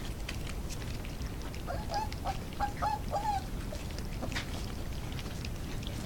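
Young puppies lapping and smacking at wet gruel in a bowl, with many small wet clicks, and a quick run of short high squeaky whimpers from a puppy starting about two seconds in.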